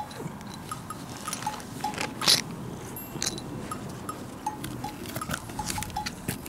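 Light background music of short, plinking percussive notes, with scattered clicks and rustles over it; the loudest click comes a little after two seconds in.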